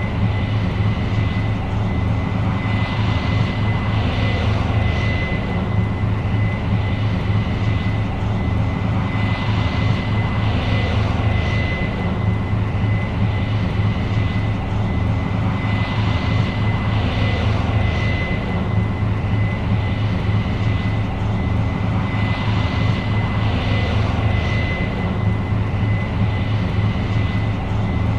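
New Holland CR 7.90 combine running steadily while harvesting corn: a deep, continuous machine drone with a thin, steady high whine over it.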